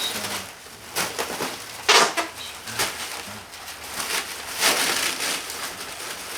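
Packing materials (bubble wrap and plastic) being handled and crinkled while a boombox is packed into a box, an irregular crackling rustle with a loud rasping burst about two seconds in and another louder stretch near five seconds.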